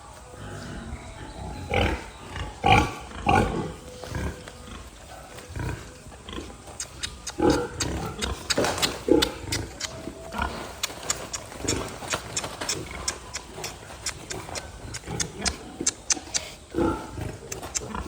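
Pigs calling in short loud bursts at intervals, with a fast run of sharp clicks through the middle stretch.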